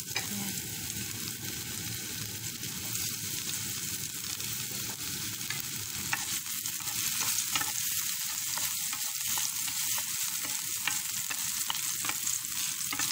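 Chopped garlic sizzling in hot cooking oil in a frying pan, with small scattered pops, stirred with a wooden spoon. The sizzle grows a little louder after the middle.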